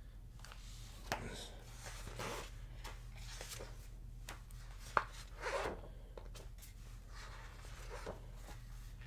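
Faint handling of a hardcover book and a sheet of paper: scattered rustles and soft knocks, with one sharp click about five seconds in.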